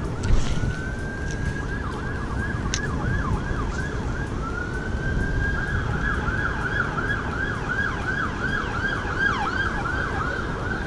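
Distant emergency vehicle siren switching between a slow rising wail and a fast yelp of about four sweeps a second, over a steady low rumble. A single knock just after the start.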